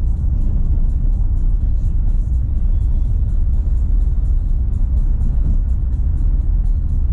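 Renault Sandero Stepway 2 driving on a dirt road: a steady low road and tyre rumble, with music playing over it.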